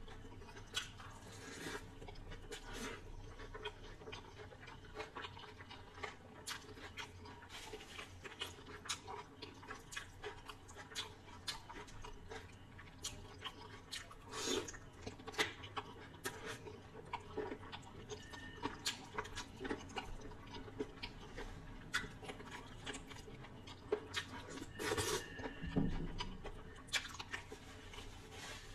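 Close-miked chewing of chicken biryani and chicken curry: irregular wet smacks and clicks of mouth and food, with a louder cluster of sounds near the end.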